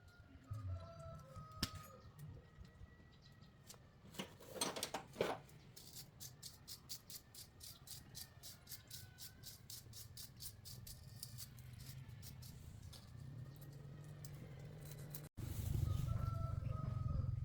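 Chickens clucking in the background, with a run of quick, even clicks at about three or four a second through the middle and a few louder scraping strokes about four seconds in. A louder low hum starts near the end.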